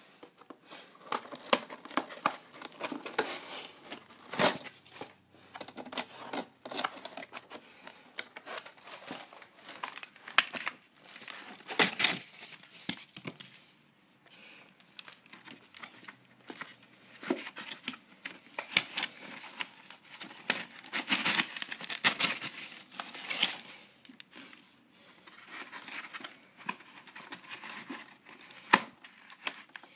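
Clear plastic packaging crinkling and rustling as it is handled, with irregular crackles and occasional sharp clicks, pausing briefly twice.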